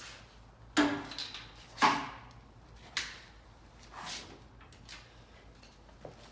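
Sharp metallic clanks and knocks of hand tools working on the engine to pull a spark plug, about one a second, the loudest two near the start.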